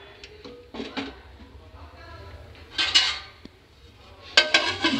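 Metal kitchen utensils clinking and clattering against steel cookware: a few light clinks about a second in, a louder clatter around three seconds, and a quick run of ringing clinks near the end.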